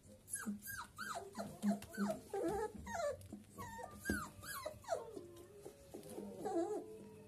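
Three-week-old Doberman puppies crying, a rapid string of short high whimpers and squeals, most falling in pitch, several puppies at once.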